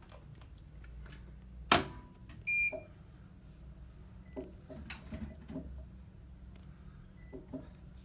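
A sharp click about two seconds in, followed by a short electronic beep from the Bosch washing machine's control panel as its drain-pump test is started in service mode. A low steady hum and a few faint ticks run underneath.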